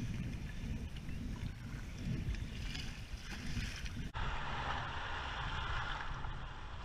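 Kayak paddle strokes and water sloshing around a sit-on-top kayak in shallow sea water, with wind rumbling on the microphone. About four seconds in, a steady hiss of small breaking waves and foam around the hull comes up.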